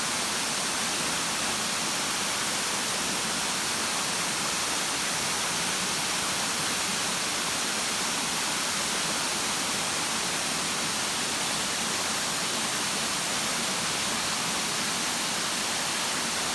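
Waterfall, fast-flowing clear water pouring down in a steady, unbroken rush.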